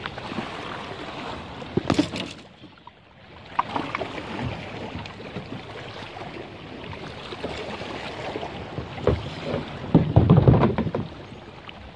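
Ocean Kayak plastic hull scraping and knocking on shoreline rocks as it is pushed off with the paddle, against lapping water and wind on the microphone. The loudest scrape comes about ten seconds in, as the kayak slides off the rocks into the water.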